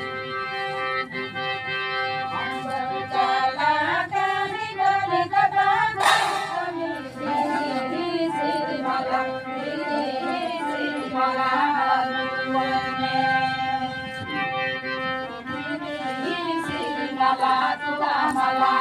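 Traditional folk music: voices singing a bending melody over a steady sustained instrumental drone, with one sharp percussive hit about six seconds in.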